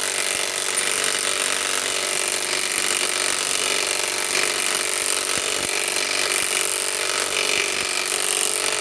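Cordless impact wrench hammering without a pause as it drives a long lag bolt into hard wood.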